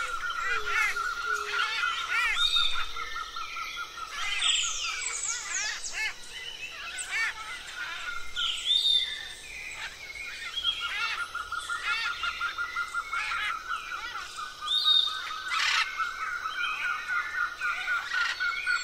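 Recorded chorus of Amazon forest birds: many overlapping chirps, whistles and calls over a steady pulsing trill, with a burst of quick falling whistles about four to five seconds in.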